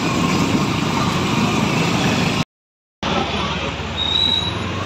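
Motorcycle on the move: steady engine and road noise with wind on the microphone. The sound cuts out completely for about half a second midway, and a brief high tone comes near the end.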